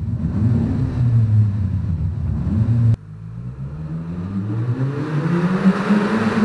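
Volkswagen with an aftermarket sport exhaust accelerating in a concrete road tunnel; its note rises and falls as it pulls away. After a sudden cut about halfway through, a car's exhaust starts fainter and grows steadily louder and higher in pitch as it accelerates toward the camera.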